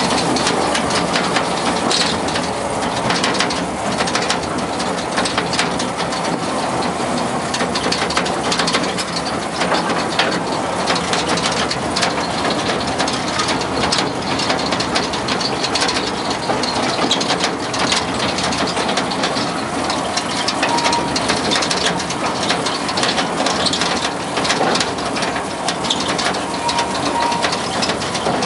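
Small open-car tourist train rattling and clattering along its track, with a steady run of clicks and knocks from the cars and wheels over the engine's running.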